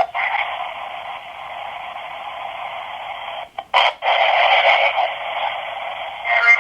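S Box ghost box playing radio-style white noise: a steady, thin static hiss, broken by a brief dropout and click a little past halfway and a crackly burst near the end.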